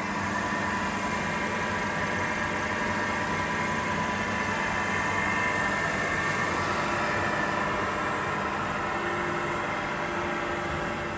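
Reform blade grinder running, its grinding-wheel spindle and drive motors giving a steady electric hum with a whine, slightly louder mid-way.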